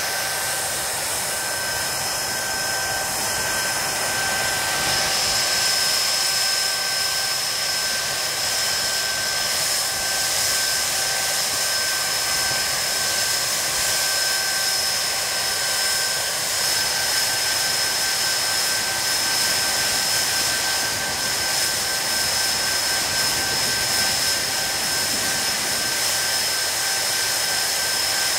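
Rolls-Royce Spey turbofan engines of a Hawker Siddeley Nimrod running steadily on a static ground run: a steady rush of jet noise with high-pitched compressor whines, and a higher whine grows stronger about five seconds in.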